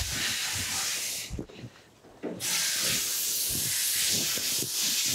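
Woven heat blanket being wrapped and pushed around a hot brazed cast-iron casting, giving a loud, even hiss of fabric rubbing close by, with soft knocks from handling. The hiss stops briefly about a second and a half in, then comes back about a second later.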